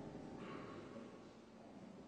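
The faint tail of a sustained, gong-like ringing tone in the electroacoustic santour piece, dying away in the first half second and leaving near quiet. A brief soft hiss passes about half a second in.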